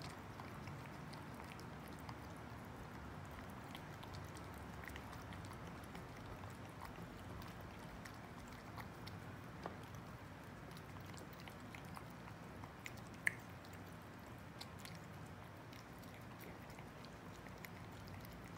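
Two cats eating from bowls: soft smacking and chewing with many small clicks, over a faint steady low hum. A sharper click stands out about 13 seconds in.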